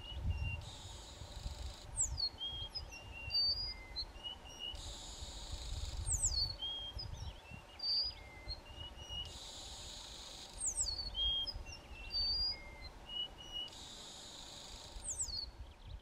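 A mated pair of dark-backed weavers duetting to hold their territory. A high buzzing phrase comes about every four seconds, and between phrases there are short whistled notes and quick descending calls.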